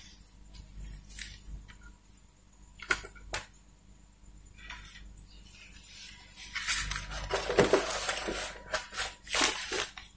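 Plastic bag crinkling and rustling as it is handled, with scattered light clicks and taps. The crinkling is densest and loudest near the end.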